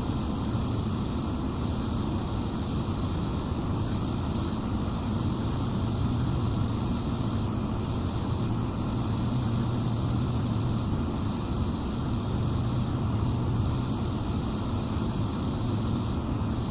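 Cooling fans of a broadcast transmitter running steadily: a constant, unchanging air noise with a low hum underneath.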